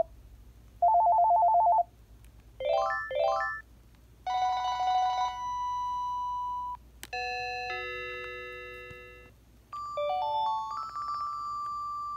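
Panasonic KX-TGDA57C cordless phone handset previewing its built-in electronic ringer tones one after another as the menu is scrolled. A short two-note trilling ring comes first, then a quick rising run of beeps played twice, then several held chime-like chords and a stepped rising run.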